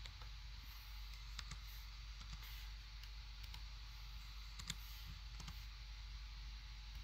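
Scattered light clicks of a laptop keyboard and mouse as numbers are typed into a table, about half a dozen, the loudest about four and a half seconds in, over a steady hiss and low hum.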